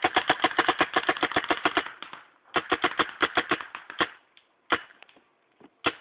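Piranha paintball gun firing a rapid string of shots, about ten a second. After a brief pause comes a second burst, which then thins out to single shots about a second apart near the end.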